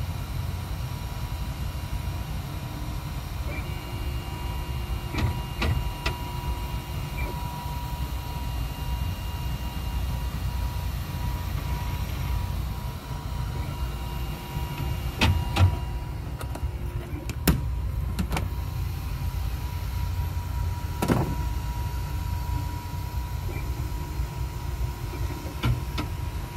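Flashforge Creator Pro 3D printer running with no filament loaded: a steady hum and whine from its stepper motors and fans, with tones that come and go as the head moves. Several sharp clicks, spread through the stretch, are the print head stuttering and skipping, which the owner suspects comes from a bad stepper motor wire.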